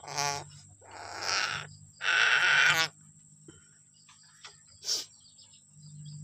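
Three harsh, raspy bird calls in quick succession over about three seconds, the third the loudest, followed about two seconds later by a single sharp click.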